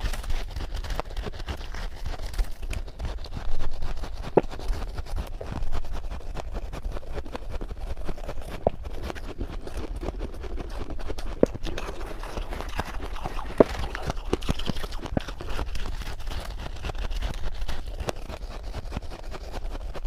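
Freezer frost being bitten and chewed close to the microphone: a dense run of small crisp crunches, with a few sharper clicks now and then.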